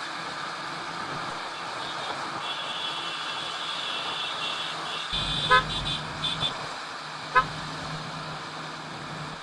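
Motorcycle riding at speed on a highway: steady engine and wind noise. Short vehicle-horn beeps come a little past halfway through and once more about two seconds later.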